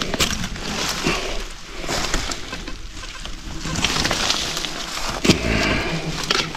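Old scrap wire being yanked out of the ground and undergrowth by hand: rustling leaves and brush, with uneven crackles and snaps as it tears free and soil sprays off it.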